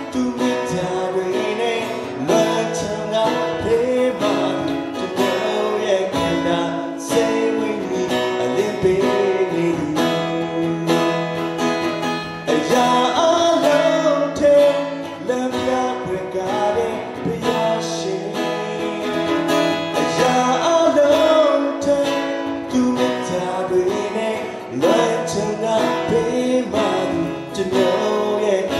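A man singing into a microphone while strumming an acoustic guitar.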